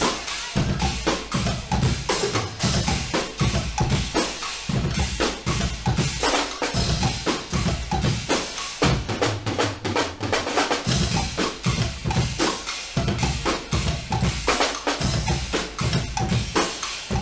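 Guggenmusik band's percussion section playing a loud, driving groove on bass drums, snares and drum kit. The bass drums drop out for about two seconds midway, then come back in.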